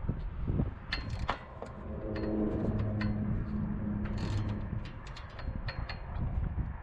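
Small clicks and rattles of hands working on the solar panel wiring and cable hardware at the edge of a van roof, over a low rumble. A low steady hum joins in for a couple of seconds around the middle.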